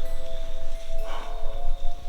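Background music of steady held tones, with a short hissing swell about a second in and low rumble underneath.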